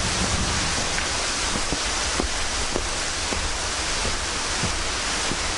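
Steady rush of falling water from a nearby waterfall, with footsteps on loose stones every half second or so.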